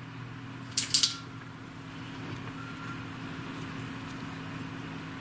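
Cotton yarn and crochet work being handled: a brief double scrape about a second in, over a steady low hum.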